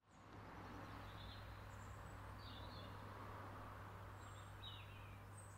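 Faint outdoor ambience: a few short, high bird chirps scattered over a steady low hum and soft hiss.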